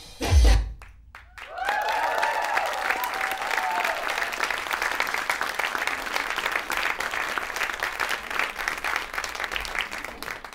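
One last deep drum beat ends the drum solo music, then after a short pause an audience applauds, with cheering voices rising over the clapping at first. The applause fades out at the end.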